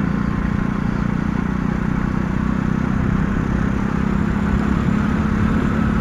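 RX9 50 cc motorcycle engine running steadily at a constant cruise, a low even hum.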